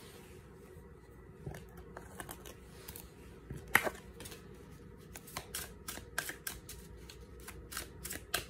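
A tarot deck handled and shuffled by hand, overhand style: a run of light card clicks and slaps that come faster in the second half, with one sharper snap just before four seconds in.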